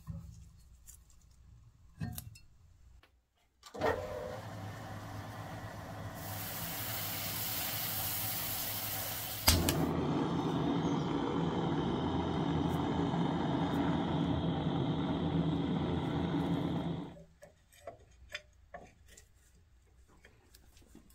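Gas torch hissing, then lighting with a sharp click about nine and a half seconds in and burning steadily for about seven seconds before it is shut off suddenly. A few light metal clicks come before and after.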